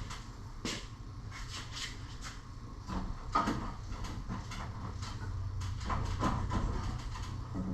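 Steel snowplow-mount tubes clunking and scraping in their brackets as they are worked into place: a scattered run of short knocks and slides over a steady low hum.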